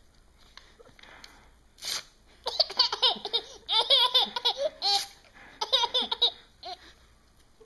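Baby cackling with laughter in repeated bursts, set off by paper being torn; a short rip of paper comes about two seconds in, and the laughter dies away near the end.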